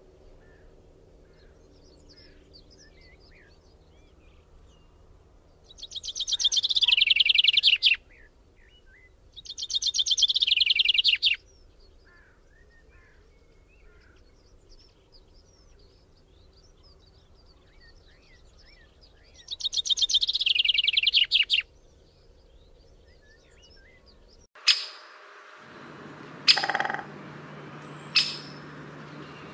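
Birds chirping: faint scattered chirps throughout, broken by three loud, rapid trills of about two seconds each. Near the end the background changes to a steady low hum with several sharp, ringing clicks.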